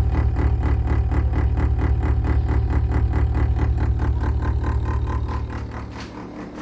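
A GE appliance giving off a loud low hum with a fast, even pulsing. The hum dies away near the end, with a click around six seconds in.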